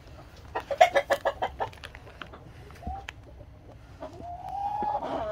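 Chickens clucking in the coop: a quick run of short clucks about a second in, a single short call a little later, then one long drawn-out call near the end.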